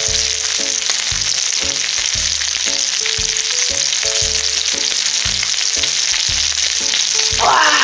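Pork sizzling steadily on a grill pan, over background music with a plodding bass line.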